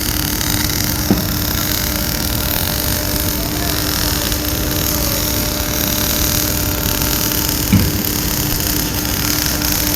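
Flux-cored arc welding (FCAW): the arc runs steadily as an even noise, over a steady low hum. Two short sharp knocks come about a second in and near eight seconds.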